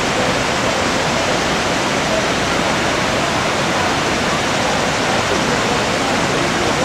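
Waterfall crashing down, a steady loud rush of falling water with no breaks.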